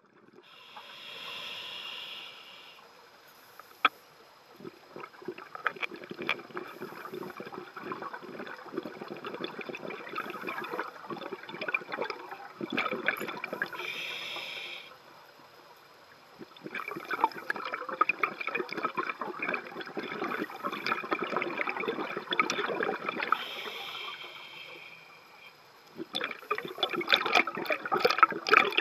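Scuba diver breathing through a regulator underwater: a hissing inhale of about two seconds, followed by a long stretch of crackling, bubbling exhaust bubbles, repeated over three breaths.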